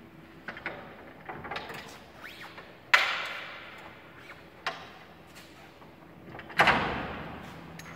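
Metal clunks and knocks as a Riello two-stage diesel burner is released from its mounting and pulled out on its housing, with a sharp knock about three seconds in and a heavier sliding clunk near the end.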